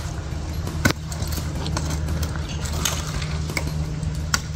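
Metal climbing hardware clinking, with scattered sharp knocks, as a climber in spikes and a rope around the trunk works his way up a palm, over a steady low hum.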